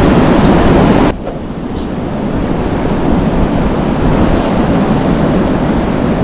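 Wind rumbling on the microphone over the wash of sea surf, a steady rushing noise that drops sharply about a second in and then slowly builds back up.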